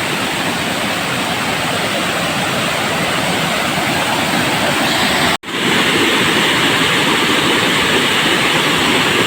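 Waterfall rushing steadily, water falling hard. It cuts out briefly about five seconds in and comes back a little louder.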